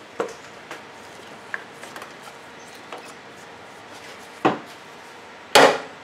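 Scattered light clicks and knocks of hands and tools at work in a car's engine bay, with two louder knocks about four and a half and five and a half seconds in, the second a brief clatter.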